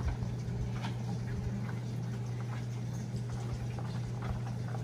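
Elliptical trainer being pedalled: light clicks and taps from its moving pedals and handles, irregularly spaced, over a steady low hum.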